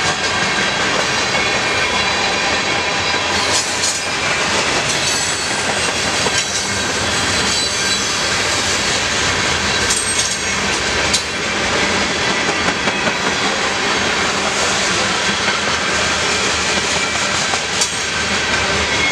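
Freight train cars rolling past close by: steel wheels rumbling and clacking over the rail joints, with a thin high squeal running over it.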